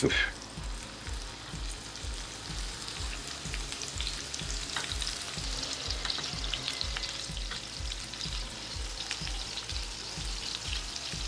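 Plant-based meatballs searing in a generous layer of hot olive oil in a frying pan: a steady sizzle with crackling spatters. A soft low beat pulses underneath, about three times a second.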